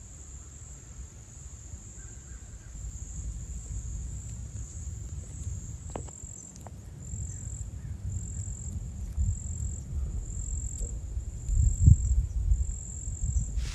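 Insects singing in a high, thin, continuous trill that breaks into even pulses, roughly one every three-quarters of a second, in the second half. Under it is a low rumble on the microphone, with a louder thump near the end.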